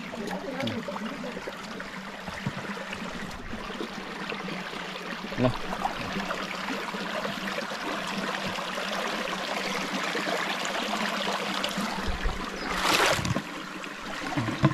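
Shallow river water flowing and trickling steadily, with a louder rush of noise lasting about half a second near the end and a faint steady hum underneath.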